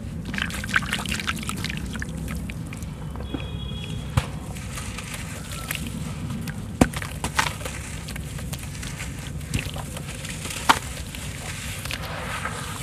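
Wet sand-cement lump being crumbled and squeezed by hand in a basin of water: water sloshing and splashing with gritty crunching, broken by a few sharp clicks as the lump cracks apart.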